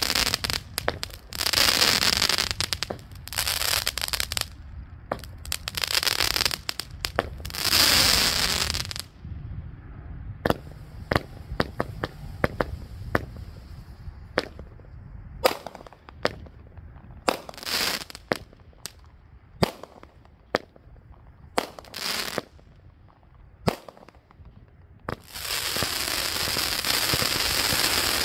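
A 35-shot, 200-gram consumer firework cake firing its shots of crackling comet tails and crackling stars. There are several spells of dense crackling in the first nine seconds or so, then a stretch of separate sharp pops, and a long spell of crackling near the end.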